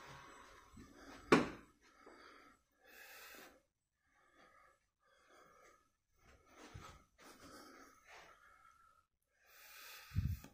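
Soft, uneven breaths close to a phone microphone in a small empty room, with a sharp knock about a second in and a low thump near the end.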